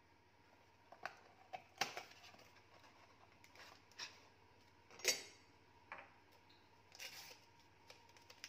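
A cardboard tea box and paper tea-bag sachets being handled and opened: scattered short rustles and clicks, the loudest about five seconds in.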